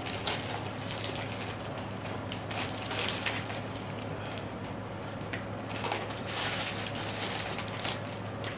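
Gift-wrapping paper being torn off a box and crumpled, in several irregular ripping, rustling bursts over a steady low hum.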